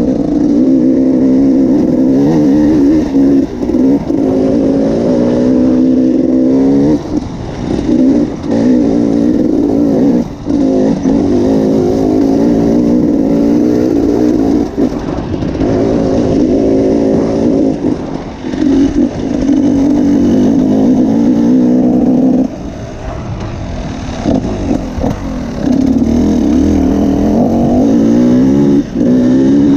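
Enduro motorcycle engine pulling along a dirt trail, the throttle opening and closing so the engine note rises and falls in long pulls. It drops back to a lower, quieter note for a few seconds about three quarters of the way through, then picks up again.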